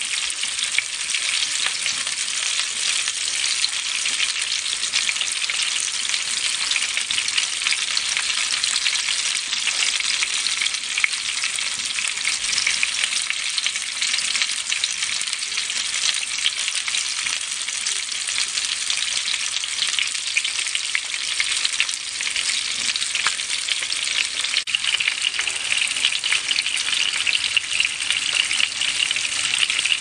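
Skin-on fish pieces frying in hot oil in a pan: a steady, dense sizzle full of fine crackles, a little brighter in the last few seconds.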